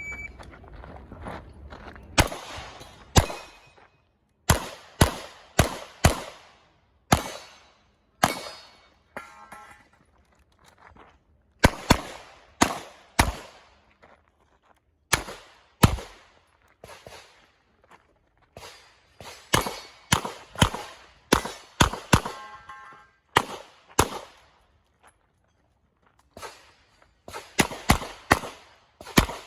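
A shot timer gives a short electronic start beep, then a revolver is fired in quick strings of shots. Each shot rings off briefly, and pauses of one to three seconds fall between the strings.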